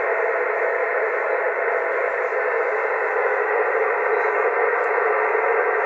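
Yaesu FT-450 HF transceiver receiving in upper sideband, its speaker giving a steady hiss of band noise and static squeezed into a narrow voice-width passband.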